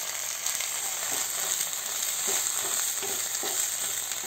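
Chopped onions sizzling in butter in a hot non-stick wok on high flame. A run of short stirring strokes from a wooden spatula comes through the middle.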